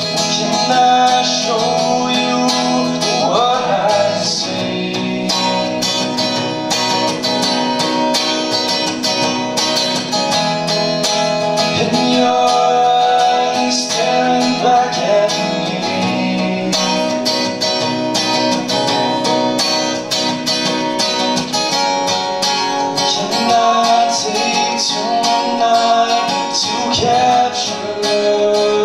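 Live acoustic guitar music: chords played steadily through a slow song passage, with a voice singing along at times.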